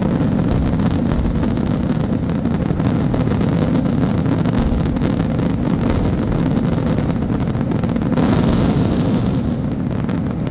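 Fireworks barrage: rapid, overlapping bangs and crackles merging into a continuous rumbling roar, swelling louder and brighter about eight seconds in.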